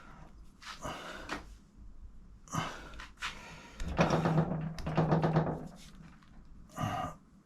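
A man grunting and straining in several short bursts of effort while forcing a tight rubber footrest onto a motorcycle footpeg by hand.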